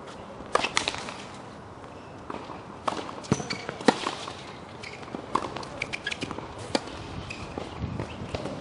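Tennis rally on a hard court: a ball struck back and forth by rackets and bouncing on the court, heard as a string of sharp pocks about a second apart.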